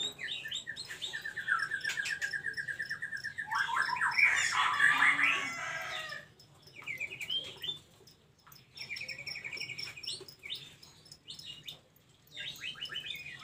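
Caged white-rumped shama and oriental magpie-robin calling: a fast rattling trill of quickly repeated notes, then a loud burst of busy chattering calls about four seconds in, then short rattling trills every few seconds.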